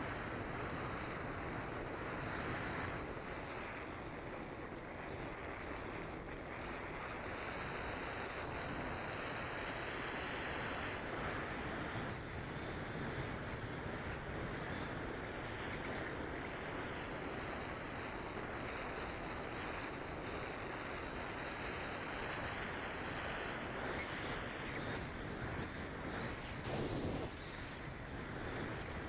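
Steady rush of airflow over the onboard camera of a Bixler II Sport RC glider in flight, with a faint high, slightly wavering whine that rises a little near the end.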